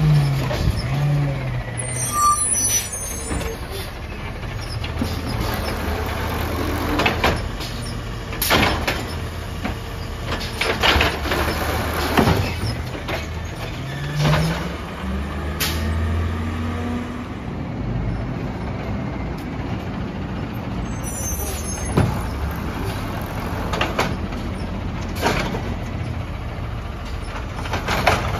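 Peterbilt 320 automated side-loader garbage truck running on compressed natural gas: engine revving up and down, the air brakes hissing twice, and a string of clunks and bangs as the arm grabs, lifts and dumps a recycling cart.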